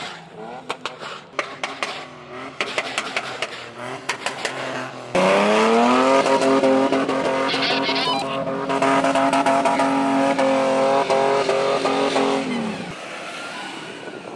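Toyota Land Cruiser engine revving hard as the SUV drives fast through loose sand: about five seconds in the engine note jumps loud, climbs quickly in pitch and is held high and steady for several seconds, then cuts off abruptly. Before that, engines running lower under many sharp clicks and crackles.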